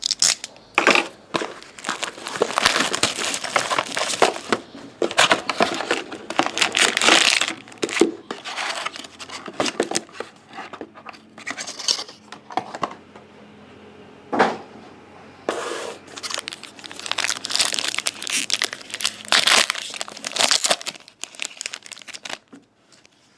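Packaging of a hockey card box being torn open and crinkled by hand: the box's wrapping and the card packs. The rustling comes in irregular bursts, with a quieter gap in the middle marked by one sharp click.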